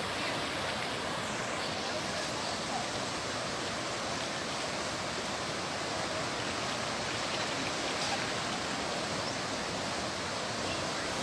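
Fast-flowing, muddy flash-flood water rushing steadily, an even wash of noise with no breaks.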